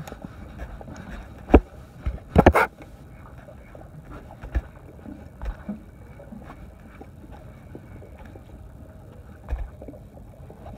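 Low wind and water noise around a small boat on open water. A sharp knock comes about a second and a half in, and a short run of louder knocks follows about a second later.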